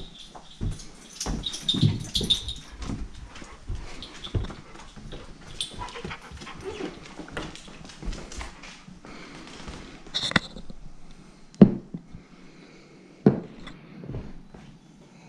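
Footsteps and handling noise from a hand-held camera, followed near the end by two sharp knocks as a beer glass and the camera are set down on a countertop.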